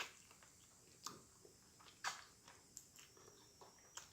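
Faint, close-miked chewing of grilled chicken, with wet mouth smacks that come as a few sharp clicks about a second apart.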